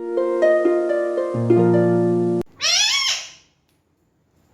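Harp-like plucked music for about two and a half seconds that cuts off suddenly, followed by one short, high call from a pet parakeet that rises and falls in pitch.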